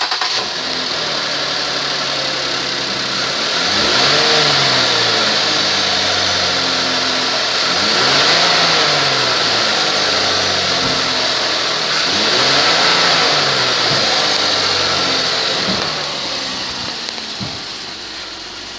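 2008 Ford Edge's 3.5-litre V6 fires up and idles. It is then revved three times, each rev rising and falling over about two seconds, before settling back to a steady idle.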